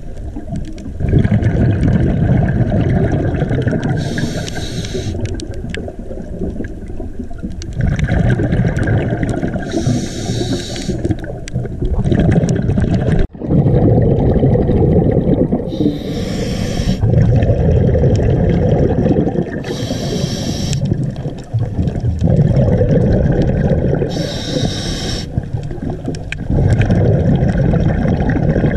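Scuba diver breathing through a regulator underwater: a short hissing inhale every four to six seconds, each followed by a longer low bubbling rush of exhaled air.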